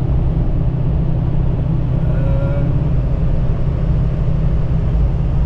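Ford F250 with a 6.0 Power Stroke V8 turbodiesel, driving at a steady cruise: a constant low engine and road rumble.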